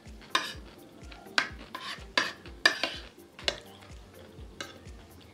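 A spoon scraping and clinking against a plate of pecel: about six sharp strokes, irregularly spaced, the loudest near the middle. Soft background music with a steady beat plays underneath.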